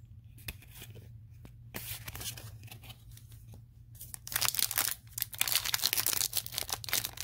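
Foil wrapper of a Yu-Gi-Oh booster pack being torn open and crinkled by hand. The dense crackling starts about four seconds in, after a quieter start.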